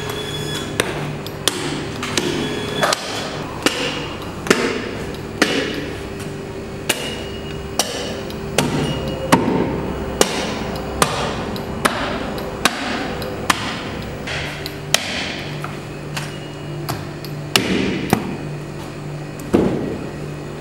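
Butcher's cleaver chopping a lamb carcass through the ribs on a wooden chopping block: a steady run of sharp chops, a bit more than one a second, over a steady low hum.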